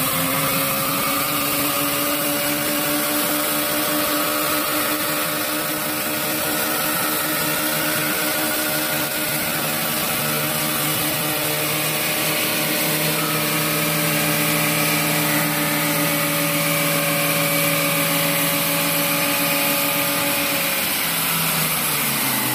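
1975 Chevrolet Caprice's 454 big-block V8 held at high, steady revs during a long burnout, the rear wheel spinning. The revs fall away near the end as the throttle is let off.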